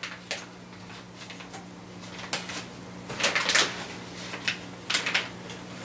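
Black plastic gift wrapping and its tied-on ribbon rustling in short, irregular bursts as a long wrapped present is worked open, with a low steady hum underneath.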